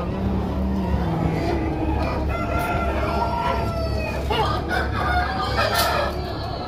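Chickens calling, with several drawn-out calls and clucks, over a steady low hum.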